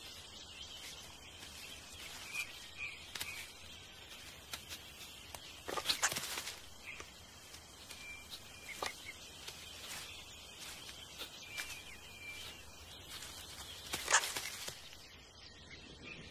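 Forest ambience: a steady high-pitched tone with scattered short chirps and clicks, and two louder sharp crackling bursts about six and fourteen seconds in.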